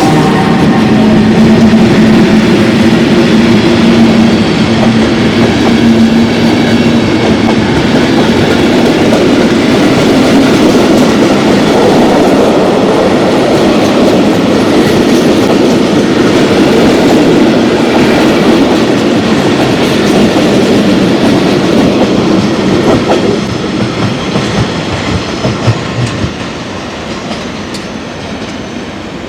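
FS D.445 'Caimano' diesel locomotive hauling a train of historic carriages past, its engine running with a steady hum and the wheels clattering over rail joints. A few sharp clacks come near the end, and then the sound drops away as the train moves off.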